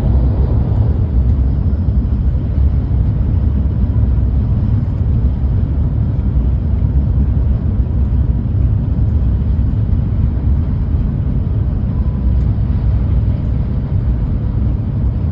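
Steady low rumble of a Tohoku Shinkansen Hayabusa train running, heard inside the passenger cabin.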